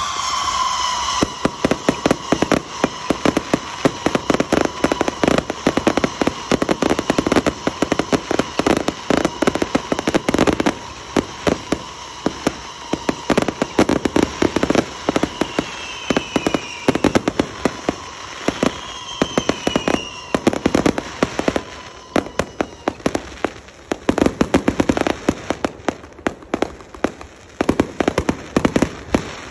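Fireworks display: a dense, continuous barrage of sharp bangs and crackles from aerial fireworks. A steady high tone and a few short falling whistles sound through the first two-thirds, then fade.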